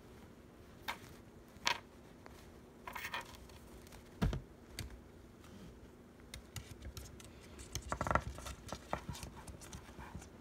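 Scattered small clicks, taps and crinkles from treats being handled, coming thicker in the second half, with a dull thump about four seconds in, over a faint steady hum.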